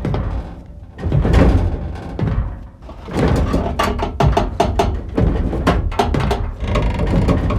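Music with percussion. About three seconds in, a fast run of sharp hits begins.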